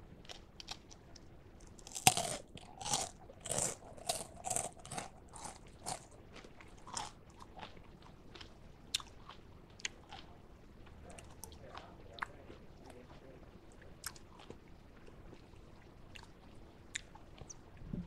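Chewing a freeze-dried Jolly Rancher hard candy: a run of loud, crispy crunches from about two seconds in, thinning out to scattered single crackles as the puffed candy is bitten down.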